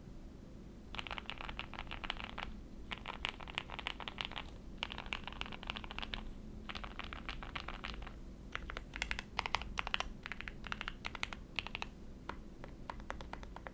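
Custom QK65v2 mechanical keyboard being typed on: hand-lubed Gateron Milky Yellow Pro linear switches on an FR4 plate with GMK keycaps, giving a muted, "thocky" bottom-out with a slight scratch. Fast bursts of typing start about a second in, then slower, separate keystrokes through the second half.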